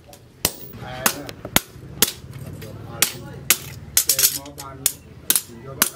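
A hand hammer striking a steel knife blade, cut from a plough disc, on a steel post anvil: about a dozen sharp metallic blows, irregularly spaced at roughly two a second.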